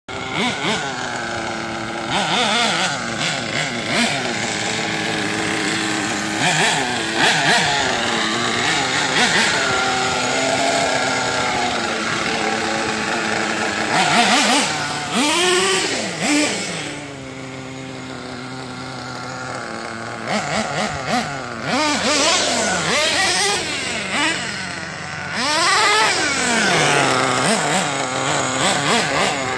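Small nitro (glow-fuel) two-stroke engine of an RC monster truck running, alternating between a steady idle and repeated revs whose pitch climbs and falls.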